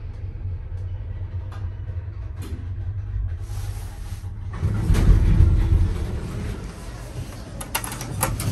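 Vintage single-speed OTIS lift heard from inside the car while it runs: a steady low rumble that swells louder about five seconds in, then a few sharp clicks near the end.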